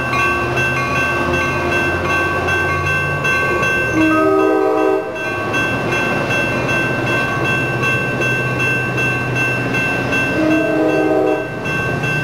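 Bilevel commuter passenger cars rolling past at a grade crossing with a steady low rumble, while the crossing bell rings on. Two short train-horn blasts, each about a second long, sound about four seconds in and again near the end.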